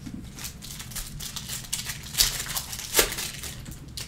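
Foil trading-card pack wrapper crinkling as it is torn open by hand and the cards are slid out, with two sharper crackles about two and three seconds in.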